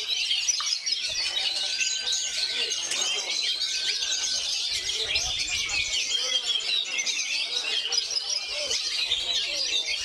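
Caged oriental magpie-robins (kacer) singing at once: a dense, unbroken stream of overlapping chirps and whistles, with a couple of longer held whistles a second or two in and again about four seconds in.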